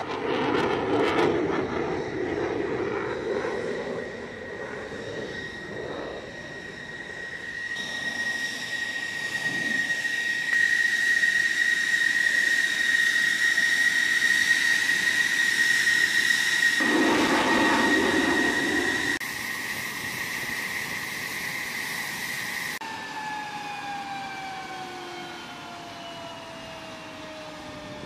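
F-16 Fighting Falcon's jet engine running at ground idle with a steady high whine and bouts of low rumble as the fighter taxis. In the last few seconds the whine falls steadily in pitch as the engine spools down at shutdown.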